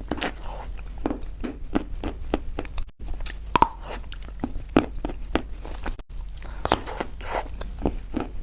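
Close-miked biting and chewing of chalk: a run of irregular sharp crunches and crackles, with the sound dropping out briefly twice.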